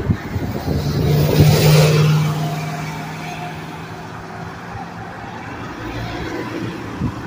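Highway traffic: a vehicle passes close by, its tyre noise and low engine hum swelling to a peak about one and a half seconds in and then fading, with the steady noise of further traffic after it.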